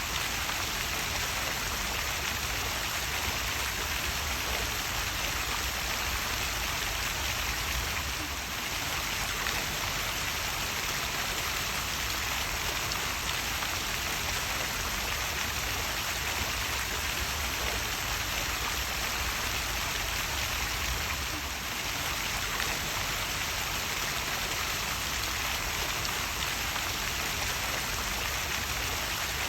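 Small waterfall: water falling and splashing in a steady, even rush.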